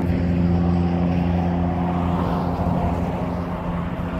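A motor's steady, even drone that slowly grows quieter.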